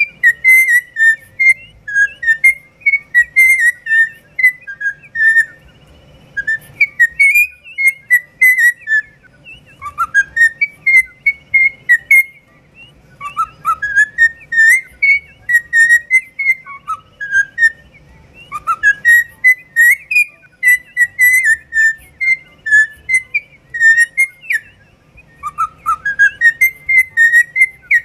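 Cockatiel whistling its song: quick runs of loud whistled notes with rising swoops, in phrases a few seconds long broken by short pauses.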